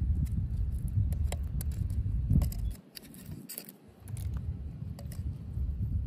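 A metal prying blade clicking and scraping against oyster shells crusted on a rock, in scattered irregular taps, as oysters are pried loose. Wind rumbles on the microphone throughout, dropping away for about a second near the middle.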